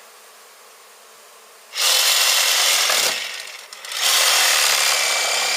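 Faint honey bee hum, then a handheld power tool starts cutting into the wall about two seconds in. It eases off for about a second, then runs again with a steady whine.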